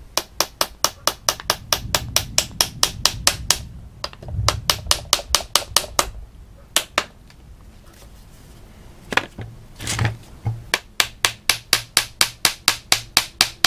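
Small hammer driving small nails into a wooden screen frame: quick light taps, about five a second, in runs. There is a pause of a couple of seconds in the middle, then a few heavier blows before a final run of taps.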